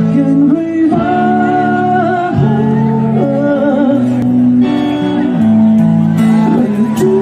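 Live rock band playing: electric guitars hold sustained chords, with a wavering melody line on top.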